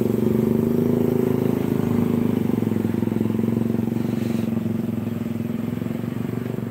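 Motorcycle engine running at a steady idle close by, an even pulsing hum with a slight dip about four and a half seconds in.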